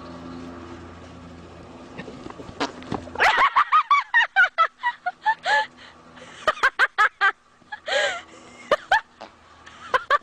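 Palomino horse breaking into a run and letting out a rapid string of loud farts, starting about three seconds in and coming in runs of several short pitched blasts a second, with short pauses between runs.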